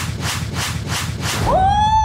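Cartoon sound effects: a fast, even scratching like quick sawing or scrubbing, about six strokes a second. About one and a half seconds in it gives way to a whistle-like tone that slides up and holds.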